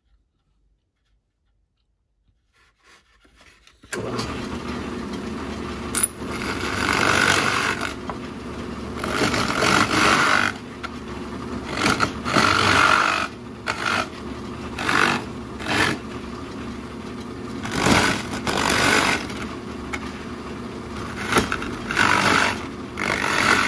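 Drill press running with a 1.5-inch Forstner bit, coming on suddenly about four seconds in after near silence and then running steadily. The bit is plunged again and again into the hollowed wooden decoy body, each cut a louder grinding stretch of a second or so over the steady motor sound.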